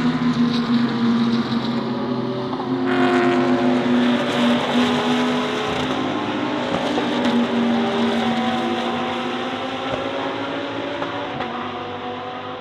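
Several GT3 race car engines running at speed together, with one car coming in close and loud about three seconds in. The engine notes rise and fall in pitch and grow fainter toward the end as the cars move away.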